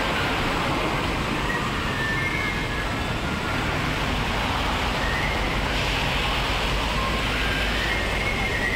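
Steady outdoor background noise with a constant low rumble.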